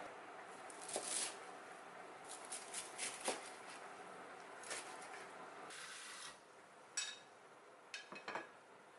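Kitchen food-preparation handling: scattered light clicks, taps and rubbing strokes of utensils and food, over a steady hiss that stops about six seconds in.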